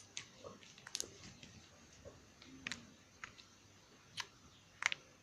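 Runny slime being kneaded by hand with toilet paper worked in to thicken it, giving faint, irregular sticky clicks and pops.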